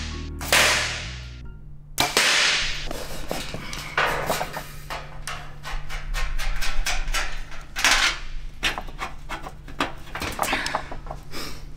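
A couple of sharp hits in the first two seconds, then a long run of scraping and clicking as a broadhead-tipped carbon arrow is twisted and pulled back out through its hole in a 17-gauge steel plate.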